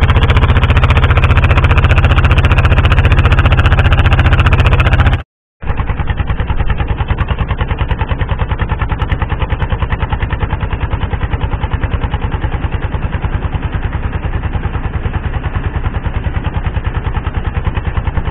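Fishing boat's engine running steadily under way, a fast even pulsing with a strong low drone. It drops out briefly about five seconds in, then carries on a little quieter.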